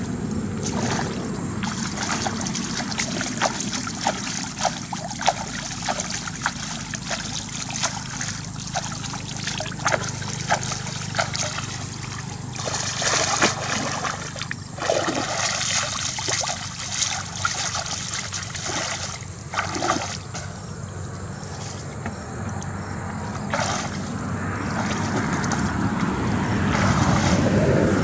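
Shallow muddy water splashing and sloshing as a person wades, scoops with a woven basket and works her hands through the water for fish, with many small sharp splashes. A steady low hum runs underneath, and the water noise swells near the end as she wades out.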